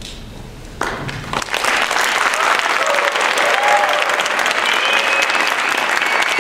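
Audience applause breaks out a little under a second in, after the faint tail of the song's accompaniment, and quickly builds to steady clapping, with a few voices cheering over it.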